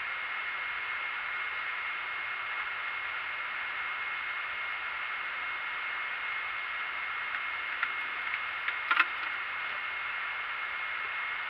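Steady hiss with a thin, high, steady whine running through it. A few light clicks and a couple of sharper knocks come about eight to nine seconds in.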